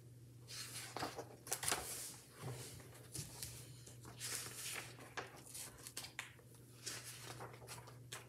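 Paper rustling and soft clicks as a picture book is handled and its pages are turned, over a steady low hum.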